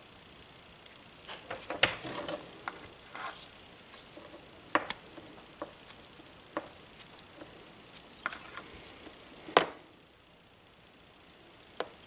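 Scattered clicks and taps of small parts and tools being handled while wiring a charger cable, with a quick cluster about two seconds in and a single loud knock near the end.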